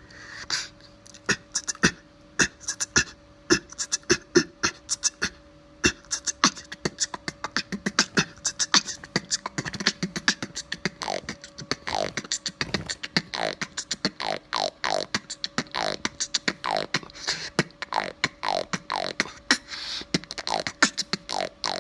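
Beatboxing: a rhythmic pattern of cough snares and an inward lip roll, with sharp percussive hits coming several a second. From about halfway in, short falling pitched sweeps repeat within the beat.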